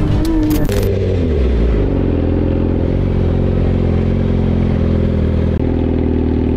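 A vehicle engine running at a steady, unchanging speed, after a short clatter in the first second.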